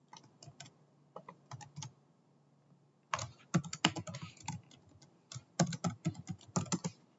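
Typing on a computer keyboard: a few scattered keystrokes, then two quick runs of typing from about three seconds in.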